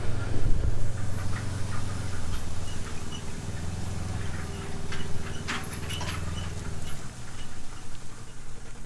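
A low steady rumble, fading near the end, with scattered light crackles and crunches like steps through freshly stripped rice straw stubble.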